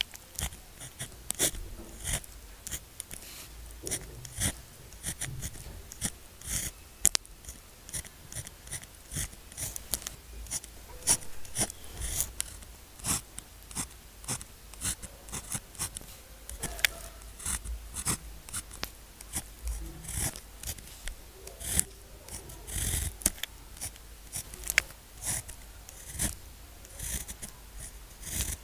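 Pen writing on paper, close to the microphone: a steady run of short, irregular scratchy strokes and light taps as characters are written.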